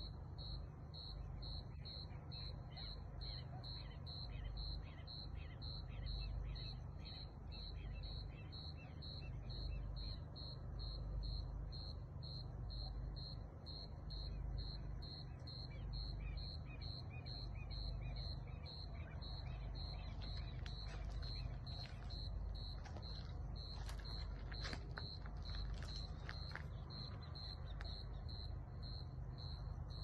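Crickets chirping at night in a steady, even rhythm of high chirps, a little under two a second, over a low steady rumble. Short, sharp high chirps join in about two-thirds of the way through.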